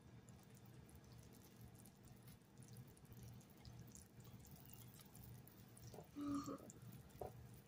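Wire whisk stirring wet cake batter in a glass mixing bowl, faint, with small ticks. A brief hum of a voice about six seconds in.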